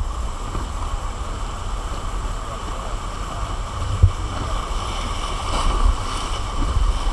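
River rapids rushing and splashing steadily around a raft, with wind buffeting the microphone as a low rumble. A single short knock about four seconds in.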